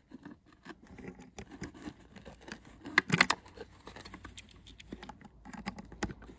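Handling noise of multimeter test leads and probes being fixed to a battery terminal: a run of small clicks, taps and rattles, with a louder cluster of knocks about three seconds in.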